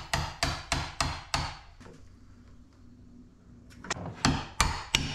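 Claw hammer blows driving a bolt through a galvanized steel bracket into a wooden post: a quick run of six or seven sharp strikes, a pause of about two seconds, then four or five more.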